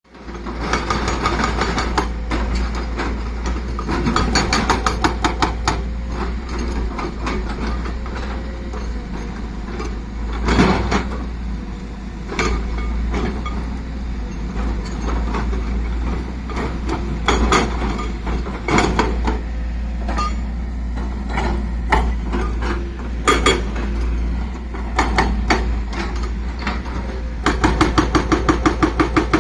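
Heavy machinery on an excavation site: rapid mechanical hammering at about five blows a second comes in short runs near the start, around four seconds in, and again near the end. Single metallic clanks fall in between, over a steady low engine rumble.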